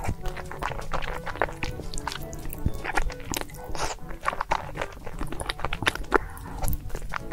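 Background music mixed with close-up eating sounds: many short, wet chewing and biting clicks from large mouthfuls of food.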